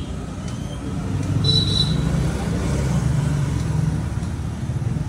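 Low, steady rumble of a motor vehicle engine running, swelling for a few seconds in the middle, with a brief high squeak about a second and a half in.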